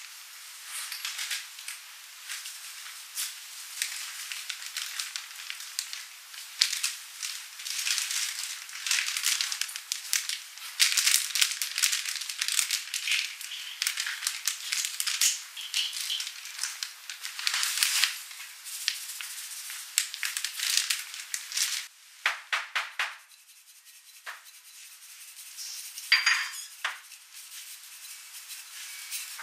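Seasoning being sprinkled over raw chopped duck in a stainless steel pan: a spice packet rustling and crinkling with dense small taps and rustles. About three-quarters of the way in, a quick run of about five shakes from a metal pepper shaker.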